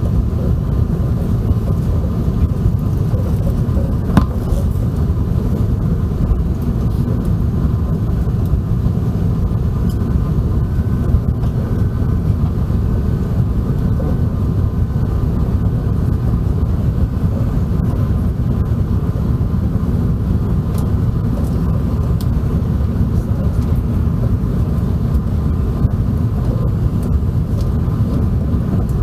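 Steady low rumble of cabin noise aboard an Airbus A380, with faint steady tones above it and a single click about four seconds in.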